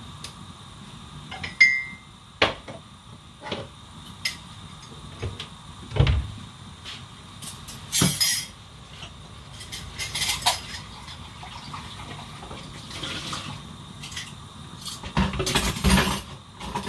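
Dishes being washed by hand at a kitchen sink: scattered clinks and knocks of crockery, pots and cutlery, with short rushes of water, the longest and loudest near the end.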